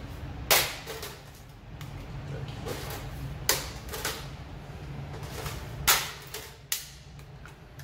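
Dry lasagne sheets being laid by hand into a stainless steel gastronorm tray, giving four sharp clacks against the tray and each other, over a steady low background hum.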